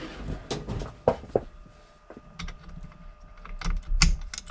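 Irregular metal clicks and knocks of a socket wrench being fitted and worked on a chainsaw's spark plug to loosen it.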